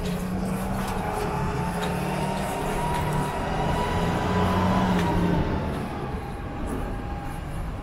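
A vehicle passing in street traffic, its engine and running noise with a steady whine that swells, rises slightly in pitch and fades away near the end.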